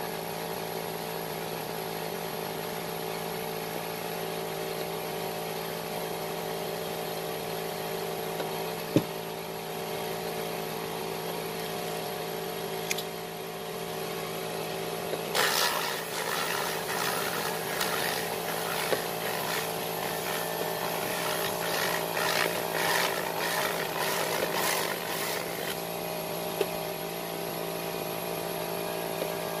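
Steady machine hum. From about fifteen seconds in, compressed air from an air-hose tool held under a towel hisses against the cloth seat in repeated surges, stopping a few seconds before the end.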